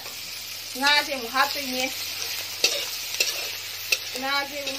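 Metal spatula stirring and scraping mushrooms and vegetables frying in a steel kadai, over a steady sizzle of frying, with a few sharp taps of the spatula on the pan near the middle. Short pitched squeaks come about a second in and again near the end.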